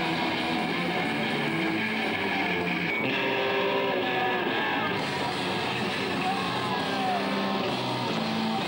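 Rock band playing, guitar to the fore, at a steady level without a break.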